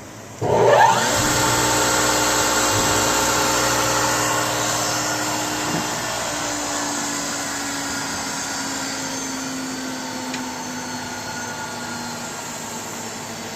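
Okamoto CNC cylindrical grinder's motors starting about half a second in with a quick rising whine, then running steadily with a hum and hiss that slowly eases a little.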